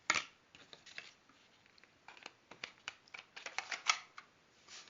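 Handling noise: a string of light clicks and rustles, like paper or card being moved, with a sharp click at the start and the clicks bunching up in the second half.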